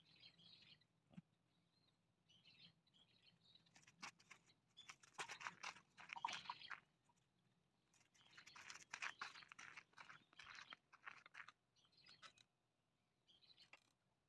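Faint crunching and gritty clicking in two stretches, from a borzoi mouthing a small ball and moving over a sandy dirt floor. Small birds chirp briefly a few times.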